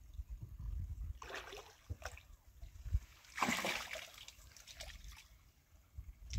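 Water splashing and sloshing in a few short bursts, the longest about three and a half seconds in.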